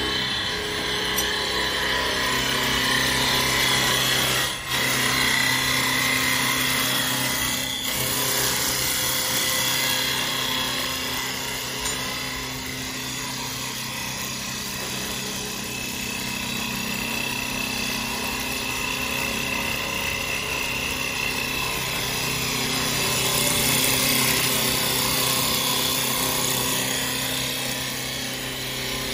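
CNC wood turning lathe cutting a spinning wooden blank: a steady motor hum under the continuous rasping hiss of the lathe tool shaving the wood. The cutting noise swells and eases as the tool carriage travels along the workpiece, with a couple of brief dips early on.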